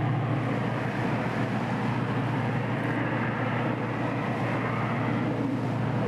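Steady motorboat engine drone over a rush of wind and water, with no sudden change.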